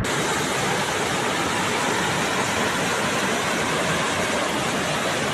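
Fast-flowing floodwater rushing past: a steady, even rush of water noise.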